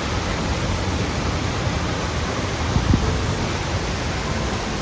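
Akiu Otaki waterfall heard up close: a heavy flow of water plunging into the pool, a steady dense rush. A brief low thump sounds about three seconds in.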